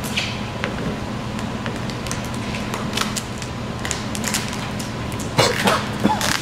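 Vinyl wrap film crackling and rustling in small ticks as it is pulled and stretched by hand over a car hood, with a louder rustle near the end, over a steady background hum.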